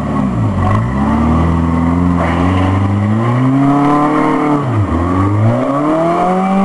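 Rock crawler buggy's engine revving as it climbs a boulder ledge: the revs rise over several seconds, drop sharply about five seconds in, then rise again.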